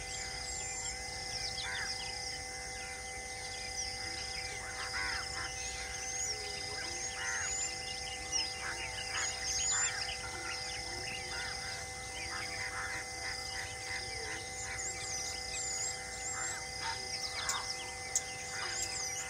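Forest ambience: many short bird chirps and calls, scattered throughout, over a steady high hum and a pulsing high drone.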